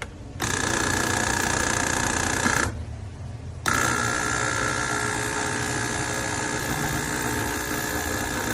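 Gemilai CRM3605 espresso machine's pump running steadily, cutting out for about a second near three seconds in and then starting again.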